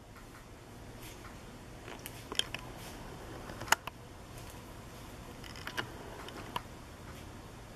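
A pen writing on a spiral notebook page in a quiet room: faint scratching with a few short sharp clicks, over a low steady hum.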